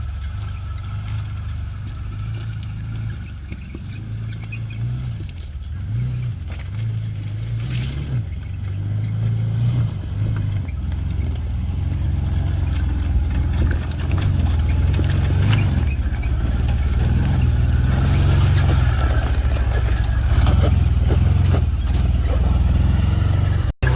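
Can-Am off-road buggy's engine running with the revs rising and falling, louder in the second half. It drops out abruptly for a moment just before the end.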